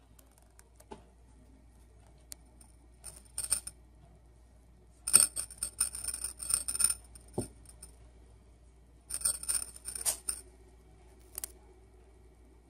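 Kitten grappling with a cat tree's plush toy mouse, setting off bursts of metallic jingling: a short one about three seconds in, a longer one from about five to seven seconds and another around nine to ten seconds. A soft thump comes between the last two.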